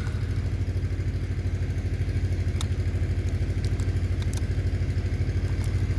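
A steady low mechanical drone with a rapid, even pulse runs throughout. Over it come a few faint crackles and clicks as a plastic ice-cream-container backing is peeled away from cured fibreglass-reinforced filler.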